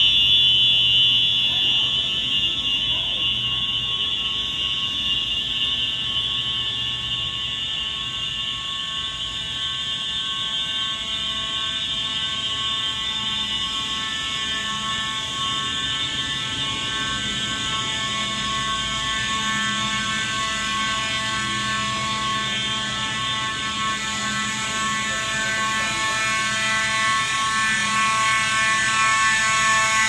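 Space Age fire alarm horns sounding continuously during an alarm test: a steady, harsh buzzing tone with many overtones, growing louder near the end.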